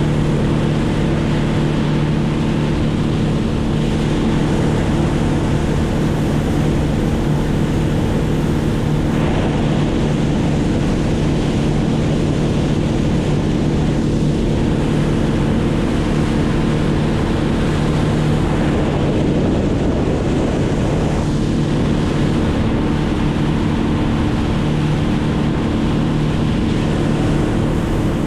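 An engine running steadily at constant speed with a rushing wind or water noise beneath it; its hum wavers briefly about two-thirds of the way through.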